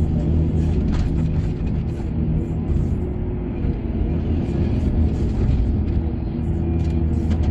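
Excavator engine running with a steady low rumble, with a couple of sharp clanks about a second in and near the end, over background music.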